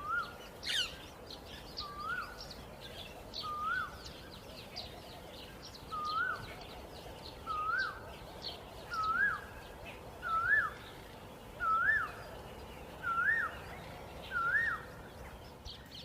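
A bird calls one rising-then-sharply-falling note again and again, about every second and a half, ten times, growing louder toward the end. Fainter high chirps run underneath.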